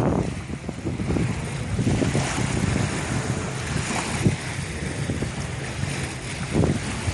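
Wind buffeting the microphone outdoors in gusts, a rough, uneven rumble with no steady tone.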